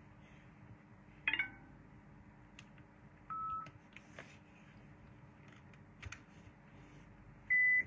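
Short electronic beeps from a device: a brief multi-tone chirp about a second in, a single beep near the middle, and a louder, higher beep near the end, with a few small clicks and taps between them over a faint steady hum.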